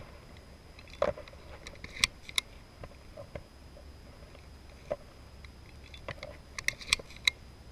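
Footsteps through dry grass and leaf litter, with scattered sharp snaps and clicks and a quick cluster of them near the end.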